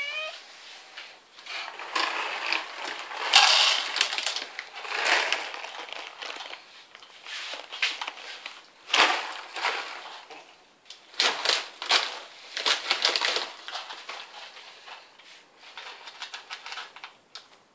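A short meow from a domestic cat at the very start, then the cat crunching dry kibble from its bowl, chewing in bursts with short pauses.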